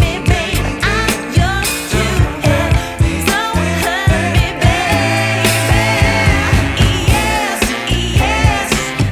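Background music: a song with a singing voice over a steady beat and strong bass.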